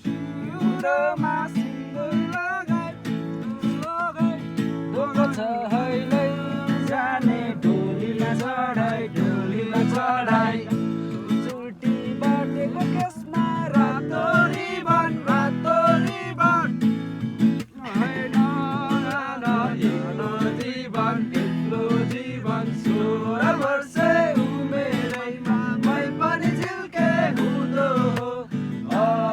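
Voices singing a Nepali folk song to a strummed acoustic guitar.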